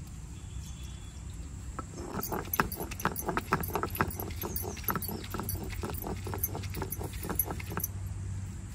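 Stone roller worked back and forth on a flat grinding stone, crushing tomatoes and spices into a wet masala: a dense run of quick clicks and knocks starting about two seconds in.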